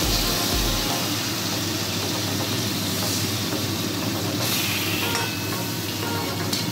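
Marinated hilsa steaks frying in hot mustard oil in a kadai: a steady sizzle. Two brief louder bursts near the end come as a spatula moves the pieces.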